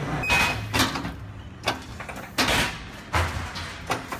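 Station fare gates: a short beep near the start, then a run of quick whooshing clacks as the gate paddles swing open and shut for passing riders.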